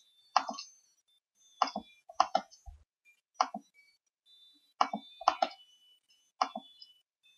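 Computer mouse clicks, single and in quick pairs, spaced unevenly: right-clicking table rows and picking Insert Rows from a context menu.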